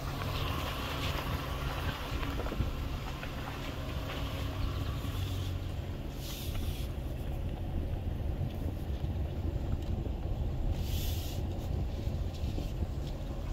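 2022 Nissan Frontier's 3.8-litre V6 running at low speed as the truck crawls along a dirt trail, heard from inside the cab as a steady low rumble with tyre and chassis noise. Two brief hissing swishes come about six and eleven seconds in.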